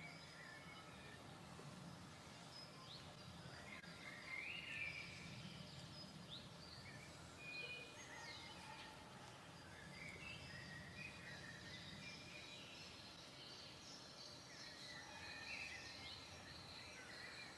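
Faint outdoor birdsong: many short chirps and whistles from birds in the trees, over a low, steady rumble.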